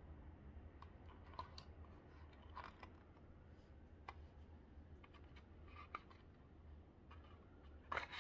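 Near silence with scattered faint clicks and soft handling noise from a hardcover picture book being held up and moved, and a louder cluster of clicks near the end as a page is turned.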